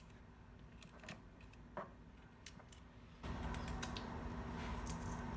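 Faint clicks and light cuts of a small serrated knife slicing a hot pepper held in the hand, with pieces dropping onto crushed plums in a plastic bowl. About three seconds in, a steady low hum starts up.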